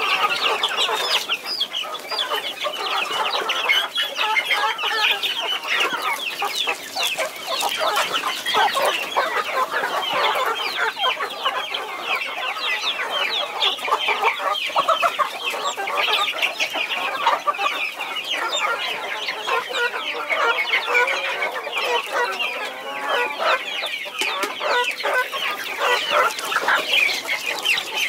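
A flock of young chicks cheeping continuously while feeding, many short high calls overlapping, with small clicks of beaks pecking at a wooden feed trough.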